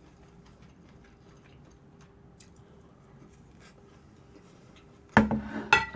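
Faint eating sounds: small utensil ticks and scratches with quiet chewing. About five seconds in, a short, loud sound breaks in.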